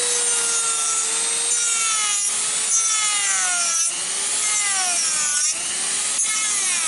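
A handheld power tool cutting away part of a truck fairing clip. It makes a steady, high-pitched whine that starts abruptly and dips in pitch several times as the cut loads it.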